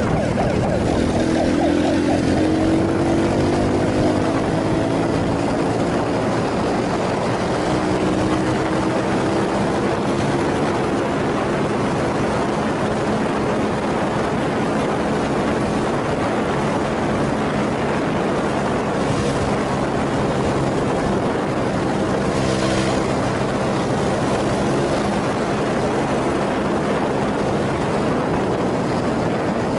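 Motorcycle engine running at speed under heavy wind rush over the microphone, its pitch rising slightly in the first few seconds as it accelerates, then holding steady.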